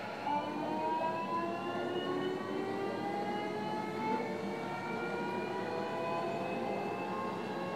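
JR Kyushu 305 series electric train pulling away from a stop, heard inside the motor car: the inverter and traction motors whine in several tones that rise steadily in pitch together as the train accelerates, over the low rumble of the running gear.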